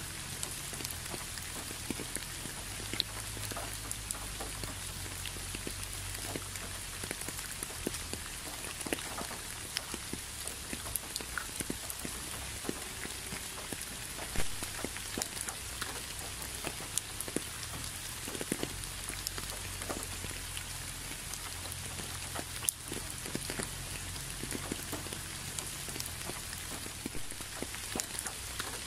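Steady rain falling, with many separate drops ticking close by over an even hiss and a low rumble underneath.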